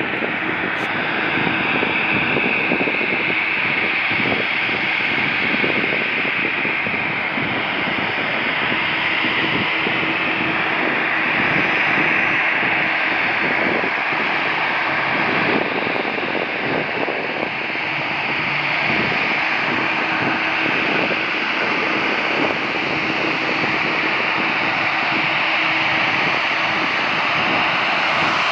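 Jet airliner engines running, a steady rushing noise with a faint steady hum underneath.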